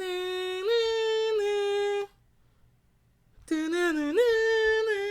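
A single voice singing long held notes with stepwise pitch changes, without instruments. There are two phrases, separated by a pause of about a second and a half.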